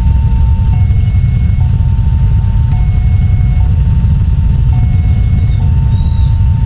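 Railway level-crossing warning siren sounding its two-tone alarm, a higher and a lower tone alternating about once a second, the signal that a train is approaching and the barrier is down. A loud, steady low rumble lies under it.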